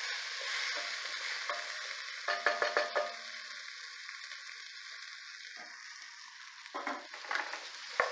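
Diced vegetables sizzling in oil in a stainless steel stock pot while a wooden spoon stirs them. A quick cluster of spoon knocks against the pot comes about two and a half seconds in, with a few more near the end.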